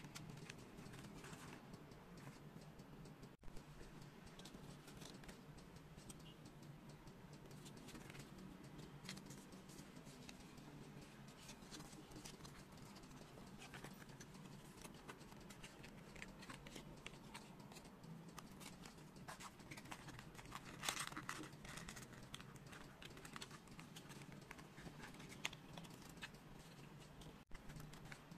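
Faint tapping, scraping and rustling of foam-board 3D puzzle pieces being handled and fitted together, with a slightly louder rustle about 21 seconds in.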